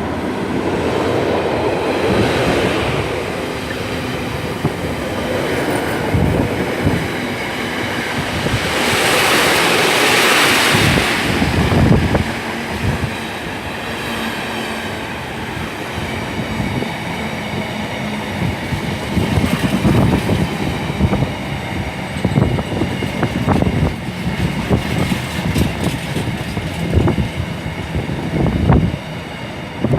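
Freight train headed by a Class 66 diesel locomotive running through a station, followed by a long string of flat wagons rolling past. About halfway through, the steady rumble gives way to frequent irregular clacks and knocks of wagon wheels over the rail joints.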